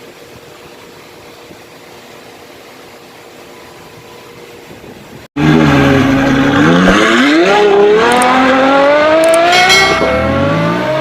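Low steady room hum. About halfway through, an abrupt cut gives way to a loud car engine accelerating hard, its pitch climbing again and again as if through the gears.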